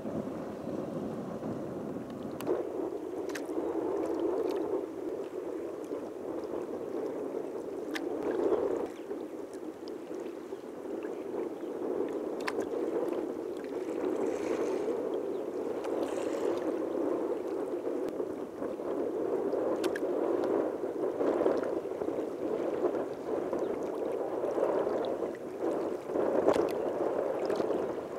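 Choppy water lapping and gurgling against a small boat's or kayak's hull, with sharp little slaps and splashes now and then.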